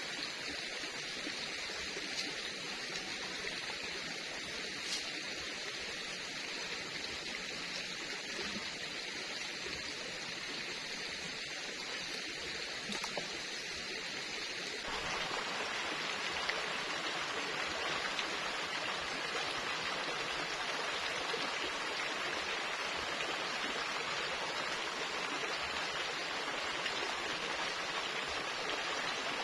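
Steady rushing noise like running water or rain. About halfway through it becomes fuller and a little louder.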